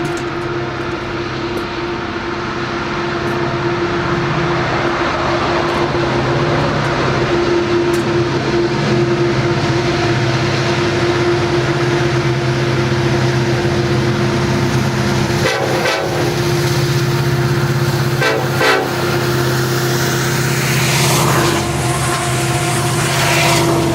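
Two EMD SD70ACe diesel-electric locomotives running as they approach and pass, a steady deep engine drone with a constant tone. It grows louder over the first few seconds, with some brief rattling later on.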